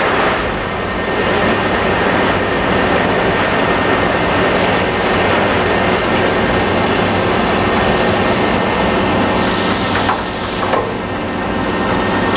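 Steady mechanical running noise of a sheet-metal laser cutter's pallet changer moving a pallet into the machine. A short hiss comes in near the end.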